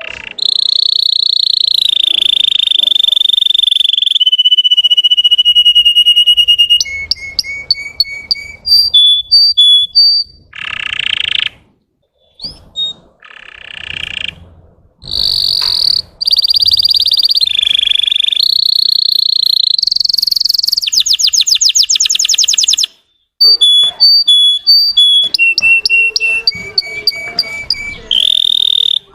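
Russian canary singing a long, high-pitched song. It moves between steady whistled notes, rapid trills and rows of short repeated chirps, with brief pauses between phrases.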